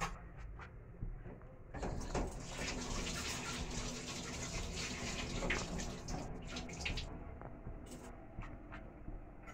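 Hissing and light crackling from a steel pot of sugar water heating over a lit gas burner before it boils. The hiss comes in about two seconds in and dies down a few seconds later.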